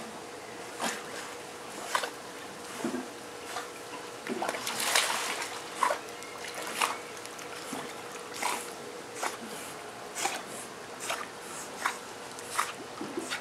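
Dogs swimming in a pool, their paddling making light splashes and sloshes of water about once a second, with a busier stretch of splashing near the middle.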